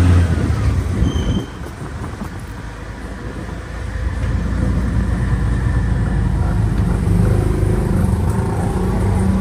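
A tuk-tuk's engine running as it drives, heard from the passenger seat inside the cab. The engine note drops about a second and a half in and picks up again from about four seconds in.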